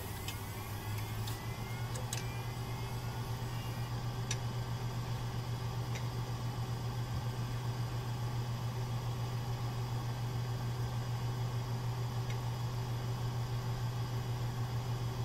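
A steady low droning hum with a slight even pulse. A few faint rising chirps sound in the first couple of seconds.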